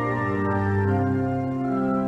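Organ playing slow, held chords, the notes moving to new pitches every half second or so.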